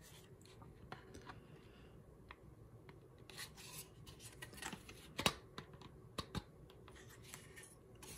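Faint handling of hard plastic: a ship miniature and its clear plastic stand rubbing and clicking together as the model is fitted onto the base, with a sharp click about five seconds in and two smaller clicks soon after.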